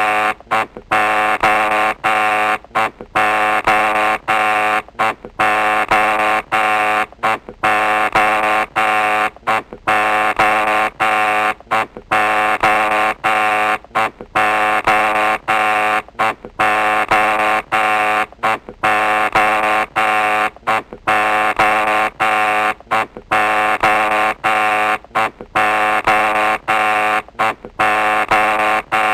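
Electric doorbell buzzer pressed over and over, giving a loud, harsh buzz in presses of about half a second to a second and a half, separated by short breaks.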